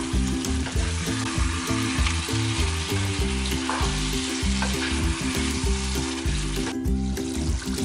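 Chicken masala sizzling in a frying pan as it is stirred with a wooden spatula; the sizzle dips briefly about seven seconds in. Background music plays underneath.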